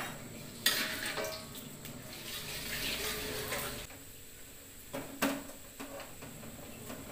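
Metal spatula clanking against a wok and scraping a cutting board into it, followed by a few seconds of frying sizzle in the hot pan. There is another sharp clank of the spatula on the wok about five seconds in.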